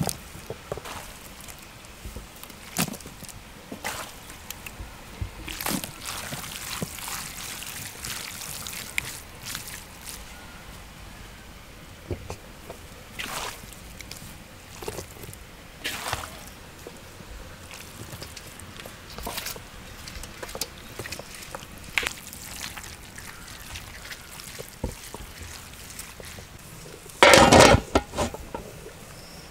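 Handfuls of raw, wet mutton pieces being dropped and spread on a cloth stretched over a large steaming pot, giving short wet slaps and squelches at irregular intervals. Near the end the large aluminium lid is set on the pot with a loud metallic clatter.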